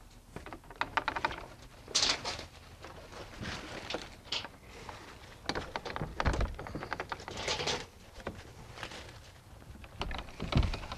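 Scattered rustling and handling noises from someone moving about while measuring with a tape measure, with two dull thumps, one midway and one near the end.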